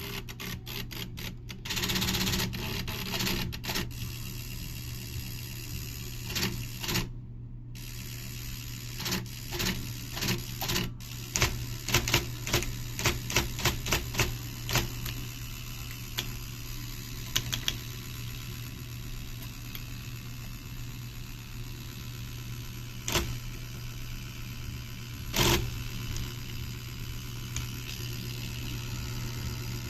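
IBM Selectric I electric typewriter with its motor running as a steady hum, the mechanism making a run of sharp clacks for several seconds near the middle and two louder single knocks later. This is the machine's error sound, a sign of a fault.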